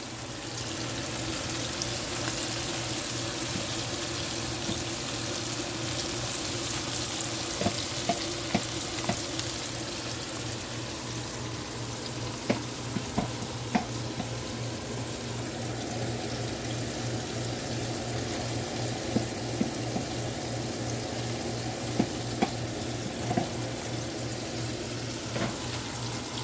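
Battered shrimp deep-frying in a pot of oil: a steady sizzle that swells about a second in, with scattered sharp clicks.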